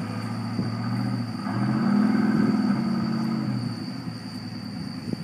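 Chevrolet K1500 Suburban engine straining under load as it tows a stuck vehicle out of mud. It revs up about a second and a half in, holds for a second or so, then eases back off.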